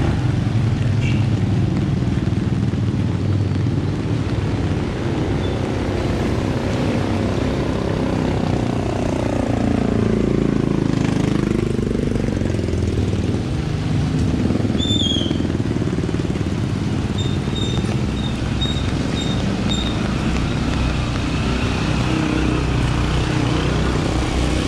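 Steady street and traffic noise. About ten seconds in, a passing vehicle's engine drops in pitch and then climbs again as it slows and pulls away. A few short high peeps follow near the middle and later, about two a second.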